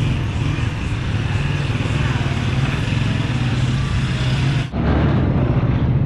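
Street traffic: motorcycle and tricycle engines running with a steady low hum, mixed with faint voices. The sound dips briefly and shifts about three-quarters of the way through.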